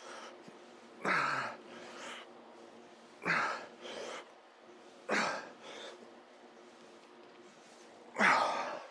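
A man's forceful exhales with each rep of a heavy single-arm cable lat pulldown, four loud breaths out spaced about two seconds apart, each followed by a fainter breath.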